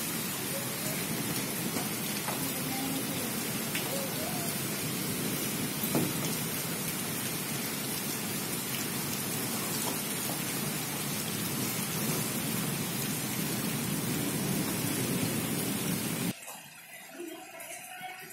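Heavy monsoon rain pouring down in a steady, dense hiss. About sixteen seconds in, the sound drops abruptly to a much quieter level.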